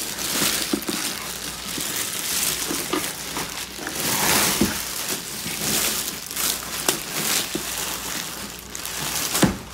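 Thin clear plastic bag crinkling and rustling as it is pulled and slid off a large plastic box, with a sharp thump near the end.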